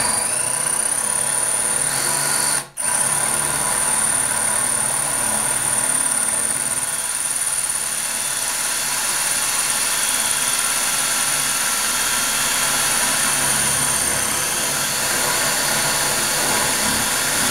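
Cordless drill running steadily with a high whine as its bit bores slowly into glazed ceramic wall tile. It stops briefly a little under three seconds in, then runs on.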